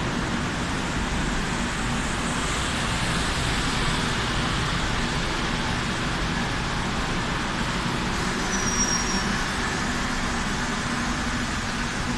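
Madrid Metro train alongside the platform, a steady rumble and hiss of its running gear and equipment, with no distinct clanks or squeals.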